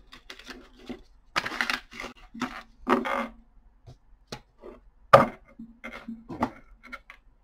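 Tarot cards being scooped up and gathered off a wooden tabletop: an irregular run of short sliding, scraping and tapping sounds, with one sharp knock on the wood about five seconds in as the loudest.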